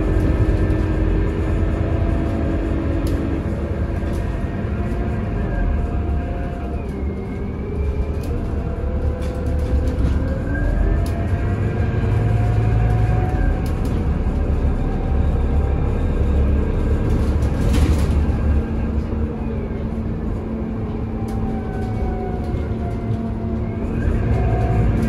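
Scania CN280UB CNG city bus under way, heard inside the passenger cabin: a steady low drone from its Scania OC09 engine and ZF six-speed automatic driveline, with whining tones that rise and fall in pitch. Now and then a sharp rattle.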